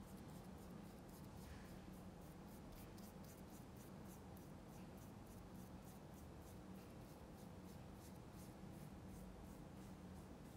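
Faint, quick strokes of an oil-painting brush on canvas, about three short brushing strokes a second, over a low steady hum.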